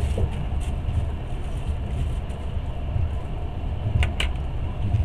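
Passenger train running, heard from inside the carriage: a steady low rumble and rolling noise, with two short high clicks about four seconds in.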